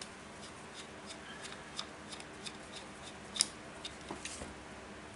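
Light metallic clicks and ticks of an inline adjustment tool being unscrewed from the inlet fitting of a Scubapro G250 second-stage regulator, with one sharper click a little past halfway.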